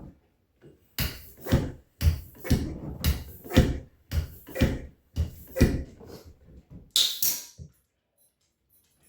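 A quick, uneven series of about a dozen sharp knocks and thumps, some in close pairs, stopping about two thirds of the way through.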